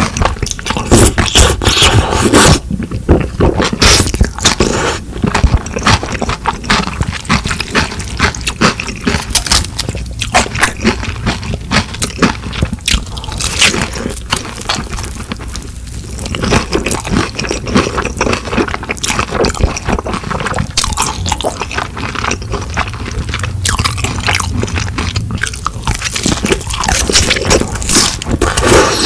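Close-miked eating: a steady run of wet chewing and crunching, with frequent short clicks and scrapes.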